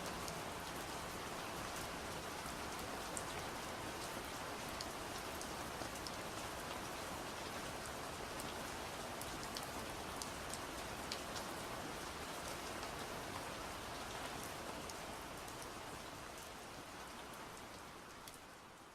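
Steady gentle rain with scattered drop ticks, fading out over the last few seconds.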